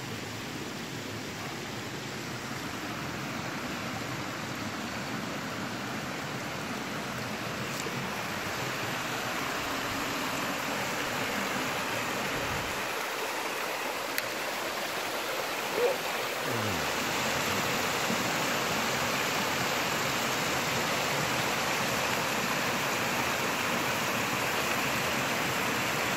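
Mountain stream running over rock ledges in small cascades, a steady rush of water that grows louder past the middle. A brief knock comes near the middle.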